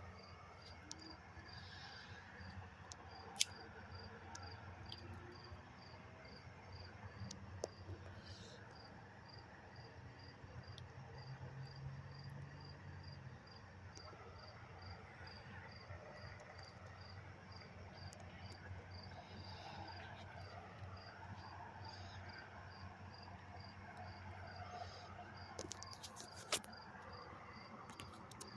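Cricket chirping steadily in a regular rhythm, about two high-pitched chirps a second, with a couple of sharp clicks along the way.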